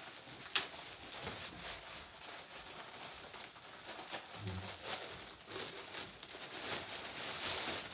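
Shipping package being torn open and its wrapping crinkling and rustling as the contents are pulled out, with a sharp snap about half a second in.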